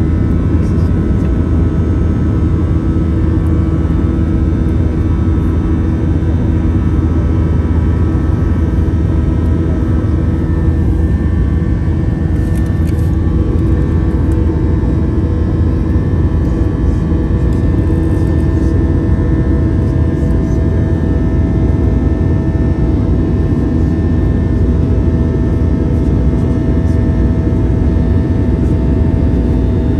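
Airliner engine noise heard inside the passenger cabin: a loud, steady drone with a few steady tones over it.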